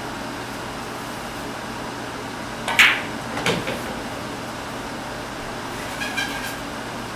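A pool shot: a sharp clack of the cue ball striking the object ball just under three seconds in, then the ball knocking and rumbling down into a pocket about half a second later, over a steady room hum. A smaller clatter of balls or cue comes near the end.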